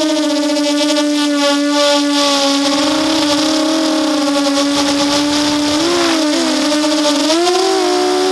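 Brushless motors and propellers of an RCX 250 racing quadcopter whining steadily, picked up by its onboard camera along with a rush of air. About two-thirds in the pitch wavers and splits into several close tones as the motors change speed, then rises near the end.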